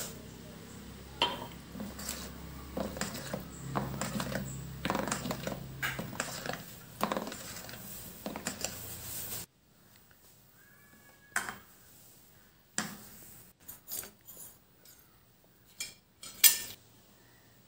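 Spatula stirring thick cake batter in a steel bowl, scraping and clicking against the metal for about nine seconds, then stopping abruptly; after that, a few separate taps and knocks of utensil on bowl.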